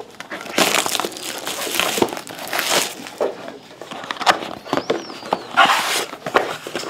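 Plastic shrink-wrap crinkling and tearing as it is pulled off a cardboard box of hockey cards, with the box handled and rubbed against the table in irregular crackly bursts.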